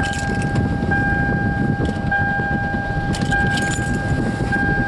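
Car engine just started and idling, with a steady electronic warning tone over it that pulses about once a second.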